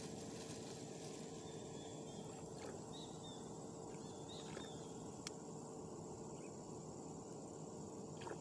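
Faint outdoor ambience: a steady hiss with a thin, continuous high-pitched drone like insects, a few short high chirps a few seconds in, and a single sharp click about five seconds in.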